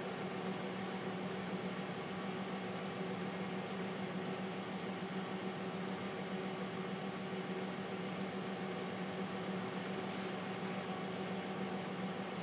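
Steady hum of a running TRS-80 Model 16B computer, its cooling fan and power supply giving a constant low tone over a light hiss.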